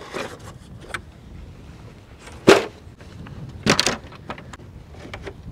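Metal-framed folding camp table being unlatched from its carry case and unfolded: light clicks and rattles of the frame, a sharp clack about two and a half seconds in, and a quick run of clacks near four seconds.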